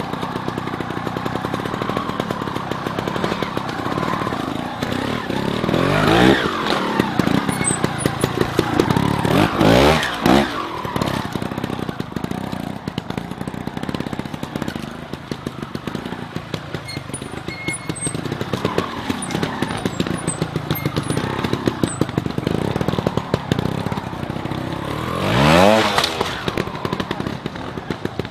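Trials motorcycle engine ticking over at a low, pulsing idle, with short, sharp throttle blips that rise and drop straight back: once about six seconds in, twice in quick succession around ten seconds, and once more near the end.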